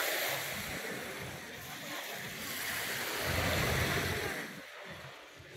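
Lake waves washing onto a sandy beach, swelling and easing twice, with some wind on the microphone.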